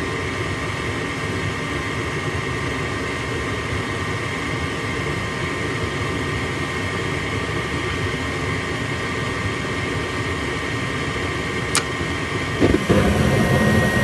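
Gas furnace's draft inducer motor running steadily. Near the end a sharp click as the Honeywell gas valve opens, and under a second later the burners light and the running sound grows louder and deeper.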